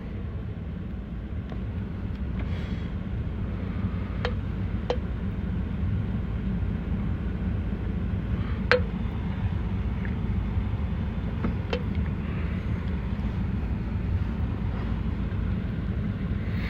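Steady low rumble with a few light, sharp clicks spread through it, from tight plastic electrical connectors being worked out of a door-panel power-window switch with a pick.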